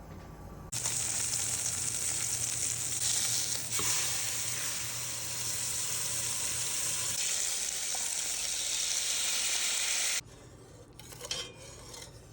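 Beef chuck roast searing in hot oil in a Dutch oven: a steady sizzle that starts about a second in and cuts off suddenly near the end, followed by a few faint clicks.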